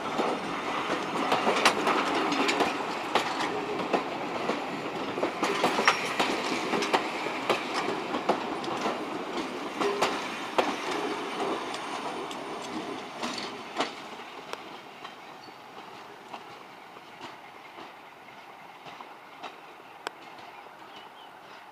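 Railway passenger coaches rolling past close by, their wheels clicking over rail joints in quick irregular ticks. The sound fades steadily over the last half as the train draws away.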